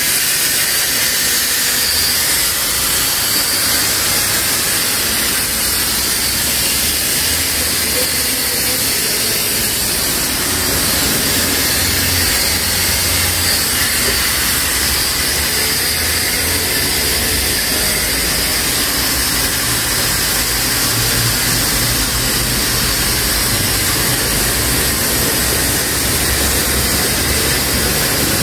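Steady hiss with a low hum underneath from car-wash equipment running, unchanging throughout.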